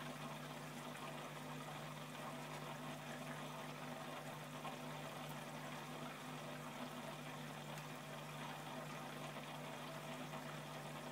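Faint, steady low hum with an even hiss behind it, unchanging throughout, with no distinct events.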